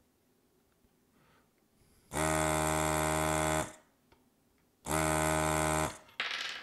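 Electric desoldering gun's vacuum pump buzzing twice, about a second and a half and then a little over a second, as it sucks molten solder from a capacitor's pins on a circuit board.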